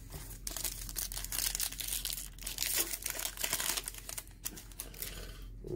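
A trading card pack's wrapper crinkling and tearing as it is ripped open by hand. It makes a dense, rapid crackle that eases off near the end.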